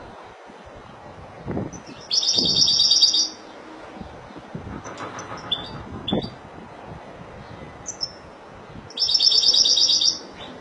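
Caged European goldfinch singing: two loud, fast, buzzy trills about a second long each, one near the start and one near the end, with short scattered chirps between them.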